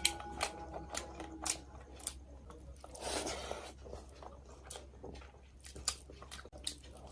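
Close-up chewing and crunching of food: a run of sharp crunches, with a longer, noisier crunch about three seconds in.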